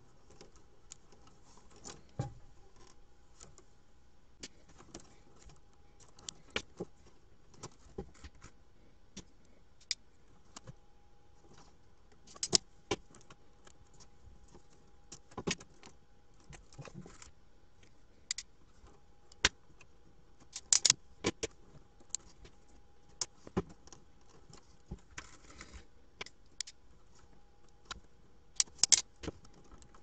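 Scattered small clicks, snaps and rattles from hand work on wiring: a crimping tool and a plastic Molex-style connector housing being handled and fitted. The sharpest clicks come in a cluster about two-thirds of the way through and again near the end, over a faint steady tone.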